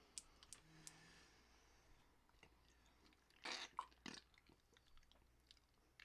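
Quiet chewing of a seasoned edible grub, small crunches and mouth clicks, with a louder noisy burst a little past halfway.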